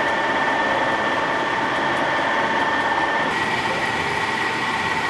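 Metal lathe running steadily with a high whine over a constant hiss; the whine's pitch shifts slightly about three seconds in.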